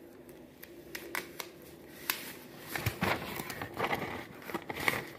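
A sheet of paper being handled and folded, rustling and crinkling in short crackles. The crackles are sparse at first and come thicker and louder in the second half.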